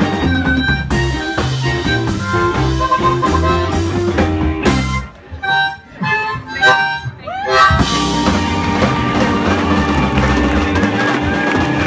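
Live blues band playing, with harmonica. About five seconds in the band stops on a hit, leaving short harmonica phrases on their own, and the full band comes back in near eight seconds.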